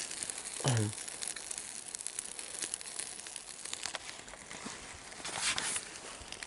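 Burning trash crackling and popping in an outdoor fire, with scattered sharp snaps. A short vocal sound falling in pitch comes about a second in, and a brief louder rustling rush near the end.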